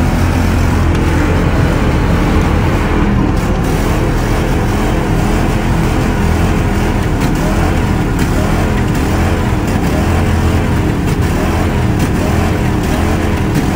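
Ford pickup's modular V8 revved hard and held on the rev limiter, heard inside the cab: a loud, steady engine note whose pitch keeps wavering up and down as it bounces off the limiter.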